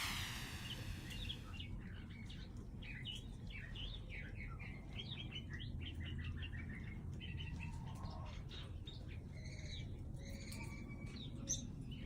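Many small birds chirping and twittering in quick, overlapping calls, over a steady low rumble.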